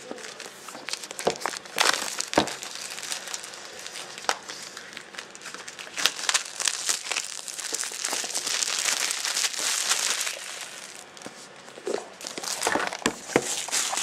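Plastic shrink-wrap being torn and peeled off a product box, crinkling and crackling throughout, loudest about halfway through, with scattered sharp clicks and a few knocks.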